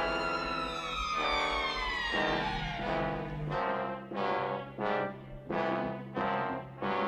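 Cartoon background music played on brass. A long falling glide runs through the first two seconds or so, then short repeated brass chords come about twice a second.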